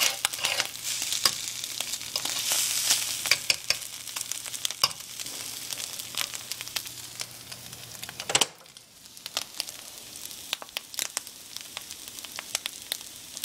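Egg sizzling and crackling in a hot flat black iron griddle pan, with a metal fork scraping and clicking against the iron as it breaks up and pushes the egg around. One sharper knock comes about eight seconds in.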